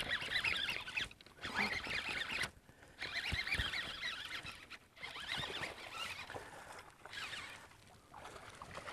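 A hooked largemouth bass being fought to the side of a boat: crackly splashing and reel noise in several spells, broken by short pauses.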